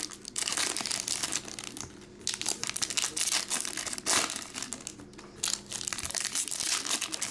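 Trading card pack wrappers crinkling and rustling as packs are handled and opened by hand, in irregular bursts, loudest about four seconds in.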